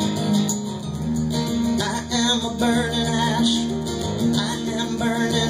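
Acoustic guitar and keyboard playing an instrumental passage of a song live, the keyboard holding low sustained notes under the guitar.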